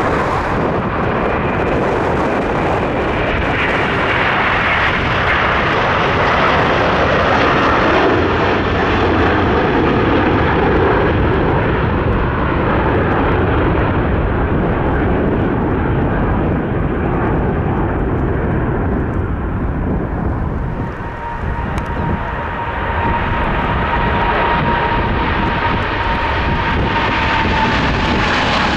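Airbus A330-300 jet airliner taking off: a loud, steady jet engine roar with a whine that drifts slowly down in pitch. About three-quarters of the way through it gives way to a Boeing 777-300ER's GE90 engines at take-off, with a steady whine that falls in pitch near the end.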